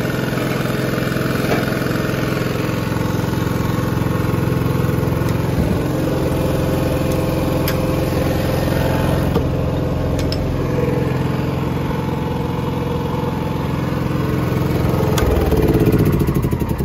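Denyo GAW155ES welder generator's Yamaha MZ300 296 cc single-cylinder engine running steadily, growing somewhat louder near the end.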